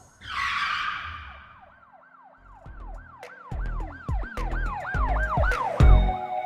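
A whoosh, then a rapid yelping siren whose pitch rises and falls about three times a second, with deep bass hits coming in about two and a half seconds in, as a music intro.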